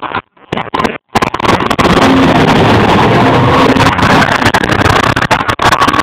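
Stunt cars' engines racing around the arena, very loud and distorted. The audio breaks up and drops out during the first second, then the engine noise runs on without a break.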